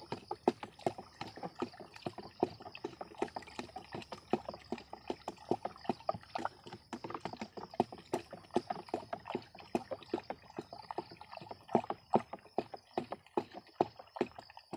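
Wooden stick stirring pesticide and foliar fertilizer mixed with water in a plastic knapsack sprayer tank: rapid, irregular knocks and sloshing as the stick is worked up and down to dissolve the chemicals.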